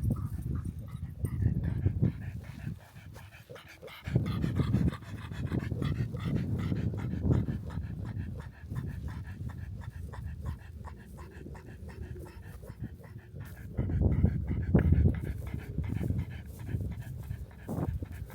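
A dog panting, with rapid breaths that rise and fall in strength.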